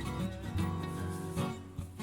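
Background music: an acoustic guitar strummed over a steady beat.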